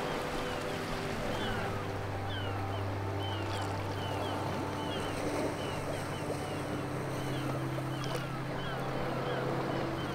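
Harbour ambience: a boat engine running with a steady low hum, under a continual string of short, high falling chirps, several a second.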